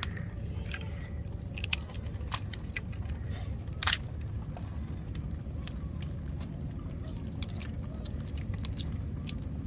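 Crab shells clicking and clattering as the crabs are handled for cleaning, with one louder knock about four seconds in, over a steady low rumble.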